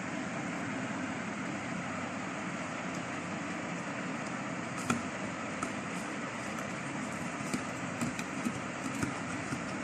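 Light clicks and taps of hands handling a plastic bottle and a small metal fitting, a few scattered from about five seconds in, over a steady background hum and hiss.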